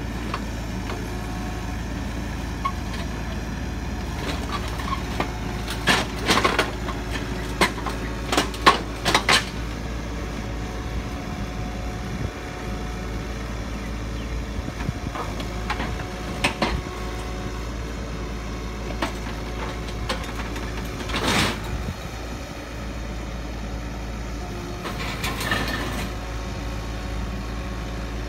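Kubota U35 mini excavator's diesel engine running steadily under load as it climbs steel loading ramps onto a truck bed. Sharp metallic clanks come from the steel tracks and ramps, a quick cluster of them a few seconds in and single ones later.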